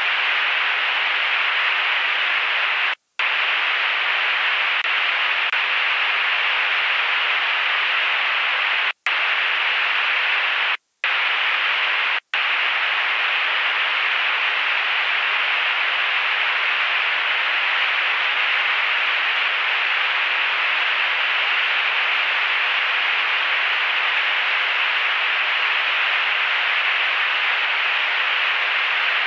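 Steady static hiss from an aircraft radio and intercom feed, with no engine or voices heard. The hiss cuts out to silence four times, briefly, in the first half.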